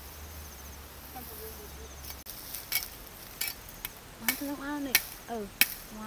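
Knife chopping at thin woody branches in scrub: a run of sharp cracks, roughly one every two-thirds of a second, beginning a little over two seconds in. Faint pulsed insect chirping is heard in the first two seconds.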